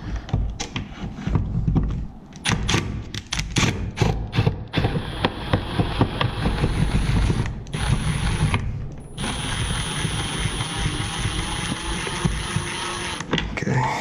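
Milwaukee Fuel cordless impact driver hammering, backing out the screws that hold a plastic electrical box to the wall: a few short bursts, then a long continuous run of rattling impacts that stops shortly before the end.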